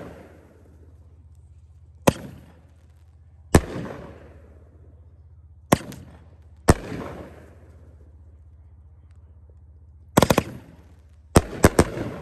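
A consumer firework cake of so-called Tannerite shots going off shot by shot, loud sharp bangs every second or two, each trailing off in a rumbling echo, with quick clusters of three cracks near the end. It is a cake built for noise rather than for symmetrical breaks.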